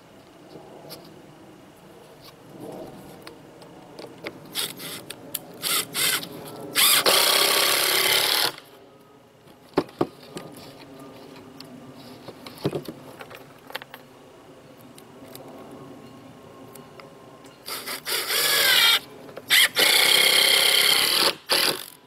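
Cordless drill running against the wood of an OSB panel: a few short trigger pulls, a run of about a second and a half, then more short pulls and a longer run of about two seconds near the end, with knocks from handling the wood in between.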